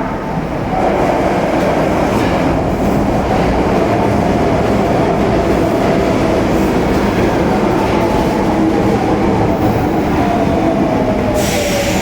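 Osaka Metro Tanimachi Line subway train running through the station with wheel rumble and a faint motor whine that falls in pitch toward the end. A sudden hiss starts shortly before the end.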